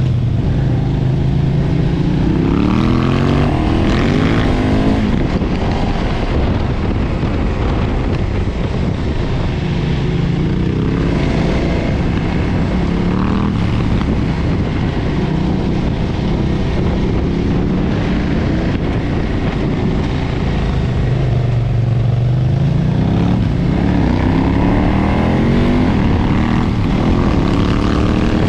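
2013 KTM 990's V-twin engine through its stock exhaust, under way. It revs up three times, near the start, around the middle and near the end, with steadier running in between.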